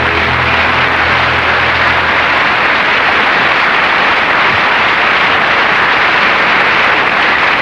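Studio audience applauding steadily as a song ends, the music's last low notes dying away in the first two seconds.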